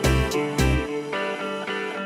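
Background music with a steady bass beat, about three beats a second, that stops about a second in, leaving the notes ringing.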